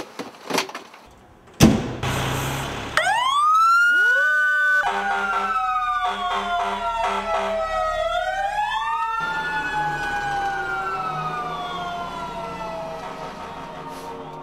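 Fire engine siren: a few clicks and a sharp bang early on, then about three seconds in the siren winds up and several overlapping wails rise and fall, with a rapid pulsing tone underneath for a few seconds, before the wail slowly winds down toward the end.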